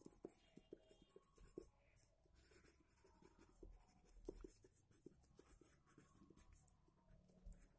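Pencil writing on paper: faint scratching with small irregular ticks of the pencil tip.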